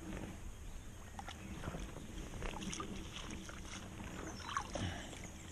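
Irregular small water splashes and light knocks around a float tube on the water, over a low rumble; the loudest comes about four and a half seconds in.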